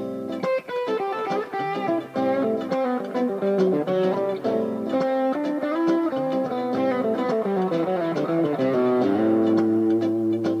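Fernandes FST-70 Strat-style electric guitar playing quick single-note lead lines. About eight seconds in, a descending run settles onto a held chord.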